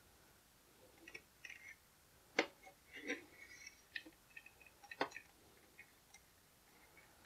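Small plastic clicks and scraping as the lime-green plastic wheel of a G.I. Joe Ninja Lightning Cycle toy is pushed and turned onto its axle. Two sharper clicks stand out, about two and a half and five seconds in.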